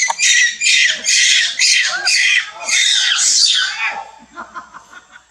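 A monkey screaming: a rapid run of about eight loud, high-pitched cries over the first four seconds, then softer, scattered calls.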